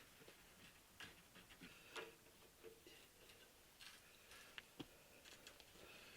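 Near silence with a few faint, scattered clicks and light taps.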